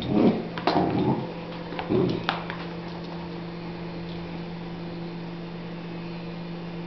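A Doberman puppy gives three short, low vocal sounds in the first two seconds or so while playing with a toy ball, over a steady low hum that continues after they stop.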